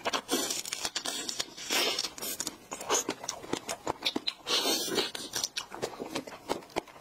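Close-up eating of whipped-cream-topped strawberries: biting and chewing with irregular mouth clicks, and louder bursts about two seconds in and again around five seconds.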